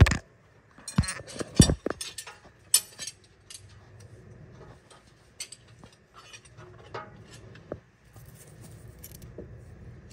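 Metal tools clinking and knocking against the valve gear of a Detroit Diesel 6-71 while the exhaust valve clearances are set with a feeler gauge. A cluster of sharp knocks comes in the first three seconds, then scattered light clicks.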